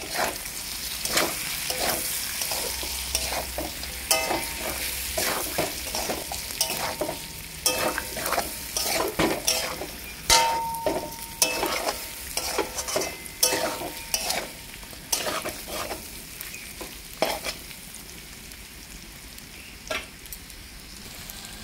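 Pork and potato pieces sizzling as they are stir-fried in a metal wok, with a metal spatula scraping and clanking against the pan many times. The scraping thins out in the last few seconds, leaving mostly the sizzle.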